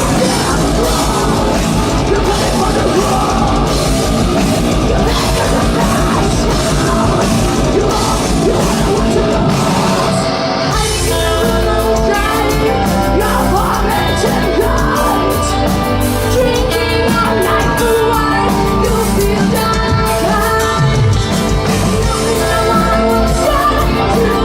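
Heavy metal band playing live with singing: a dense, heavy section of distorted guitars, bass and drums, which breaks off about ten seconds in into a lighter passage where a sung melody stands out.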